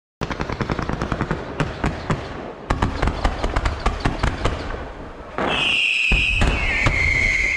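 Aerial fireworks going off: a rapid string of sharp bangs and crackling pops for about five seconds, then loud shrill whistles that slowly fall in pitch over rumbling bursts.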